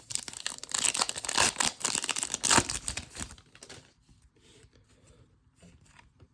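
A foil trading-card pack being torn open, its wrapper crackling and crinkling for about four seconds, then only faint rustling.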